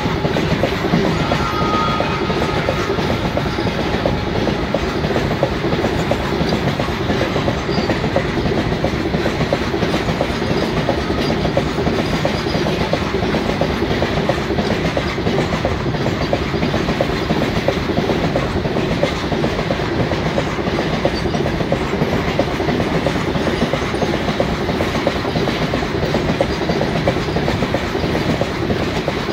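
Freight train's loaded coal wagons running past at maximum permitted speed: a steady rumble with a rapid, unbroken clatter of wheels on the rails.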